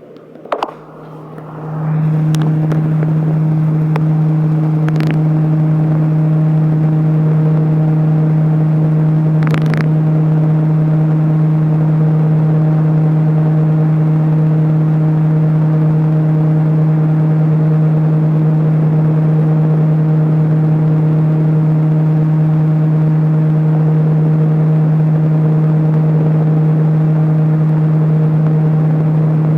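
Large electric fan switched on with a click and spinning up within about two seconds to a loud, steady motor hum with the rush of air over it.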